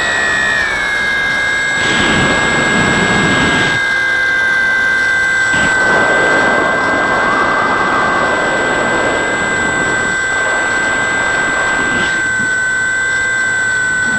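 Electric motor and propeller of a Bix3 FPV model plane heard from its onboard camera: a steady high-pitched whine at part throttle, settling slightly lower in pitch in the first second, with rushing airflow noise swelling and fading several times.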